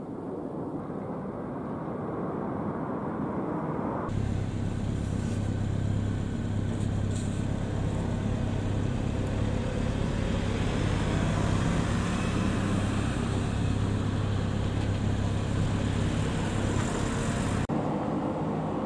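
Steady vehicle engine and road noise while driving, with a low drone. The sound changes abruptly about four seconds in and again near the end.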